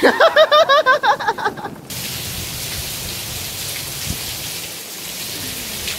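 A high-pitched voice sounds a quick run of wavering notes for about the first two seconds. It then gives way to steady rain hissing.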